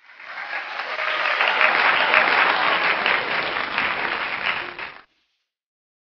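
Applause from a crowd, a recorded applause effect that swells over the first second and cuts off abruptly about five seconds in.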